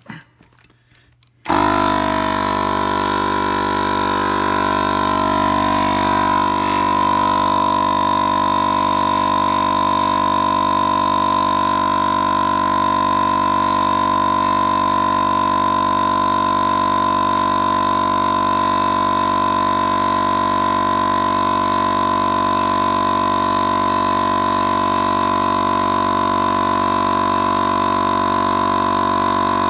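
Portable electric air compressor switching on about a second and a half in and running steadily with a strong high whine, pumping up the storage chamber of a PVC air cannon under pressure test.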